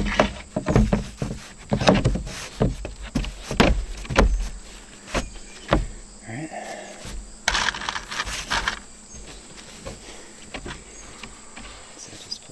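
Irregular knocks and taps on a sheet of plywood as it is handled, with a denser rattling burst at about eight seconds, then quieter. A steady high insect drone, crickets, runs underneath.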